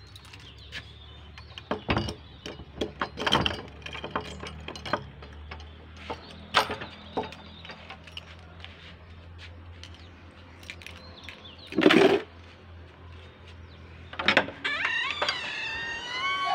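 Metal clicks and knocks from a steel door's sliding bolt latch and padlock being handled, with one loud knock about twelve seconds in. Near the end a squeaking creak, like the steel door swinging open on its hinges.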